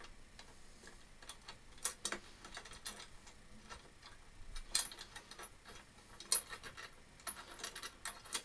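Faint, irregular metallic clicks and clinks of small bolts, lock washers and nuts being fitted by hand to mount a vise on a bench drill table, a little busier near the end.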